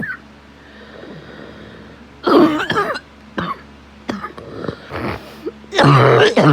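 A person coughing in a fit, ill with a cold-like chest infection on top of asthma and daily smoking. A long, loud, harsh bout of coughs comes about two seconds in, then a few shorter coughs, then another long, loud bout near the end.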